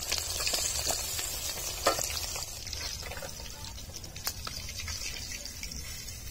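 Fish pieces sizzling in hot mustard oil in an iron kadhai, the hiss thinning out as they are lifted out with a steel ladle. A sharp clink of the ladle about two seconds in and another a little after four.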